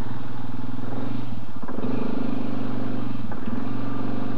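ATV engine running under throttle on rough ground. The note dips and picks up again twice, each time with a brief knock, about a second and a half apart.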